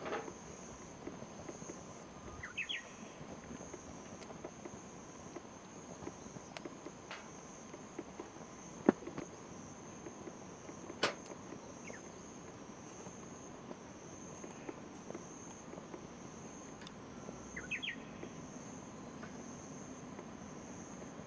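Steady high-pitched insect chirring. A few sharp snaps stand out, the loudest about nine and eleven seconds in, and two short runs of rising chirps come near the start and near the end.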